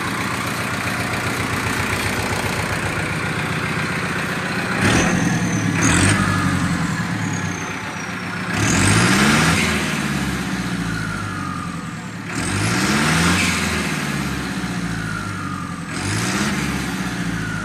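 Powertrac tractor's diesel engine, with a newly fitted turbocharger, idling steadily and then revved several times. There are two quick blips, then three longer rev-ups, each rising and dropping back to idle, with a faint high whistle falling away after the revs.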